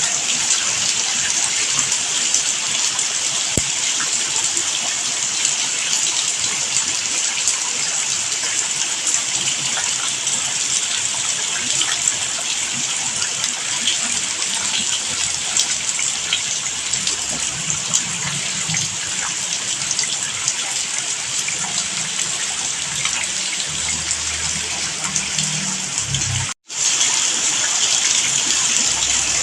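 Steady heavy rain, a continuous even hiss of falling water. It cuts out for an instant a little before the end.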